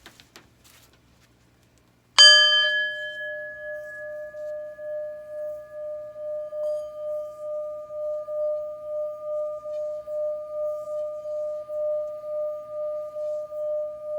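A singing bowl struck once about two seconds in. It rings on in one long tone with a slow, pulsing wobble, its higher overtones dying away within the first second or two.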